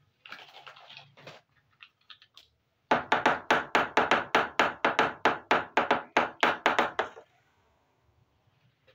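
Small red plastic toy cup tapped rapidly on a tabletop, about five sharp taps a second for some four seconds. A short scrape of plastic on the surface comes first.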